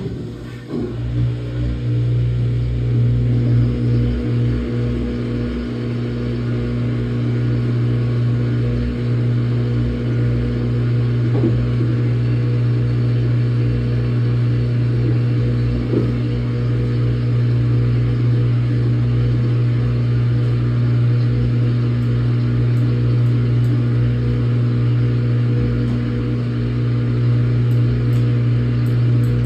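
Samsung top-load washing machine starting its motor abruptly, building over the first few seconds to a loud, steady hum.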